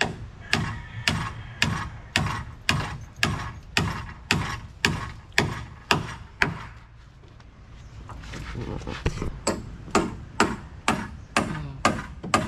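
Hammer driving nails into the wooden hull of a boat under construction, with steady blows about two a second. The hammering pauses for a few seconds midway, then starts again.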